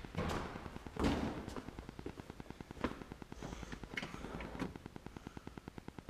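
Knocks and rustling from someone handling things right beside the microphone, loudest about a second in. Under them runs a steady fast ticking, about ten beats a second, from an unseen machine.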